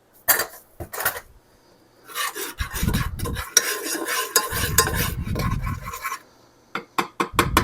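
Rasping, scraping strokes of a kitchen utensil working garlic for the sauce, with a few sharp clicks and knocks of utensils before and after.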